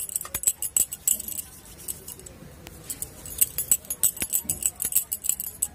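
Metal bangles on the wrists jingling and clicking in quick, irregular bursts as hands roll chhana balls between the palms.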